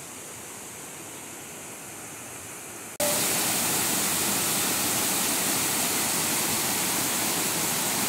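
Loud, steady rush of water pouring over a rocky cascade waterfall. It starts abruptly about three seconds in, replacing a fainter steady rush of water.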